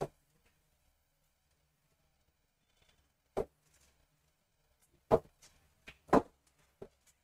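A few short, sharp taps of a stylus on the glass of an interactive smartboard as words are written, the loudest two about five and six seconds in, with quiet between.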